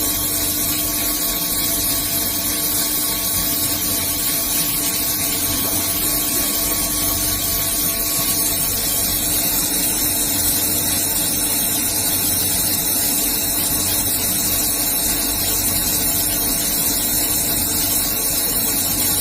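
Large CNC bridge mill running: a steady hiss, strongest in the highs, over a constant machine hum with several steady tones, unchanged throughout.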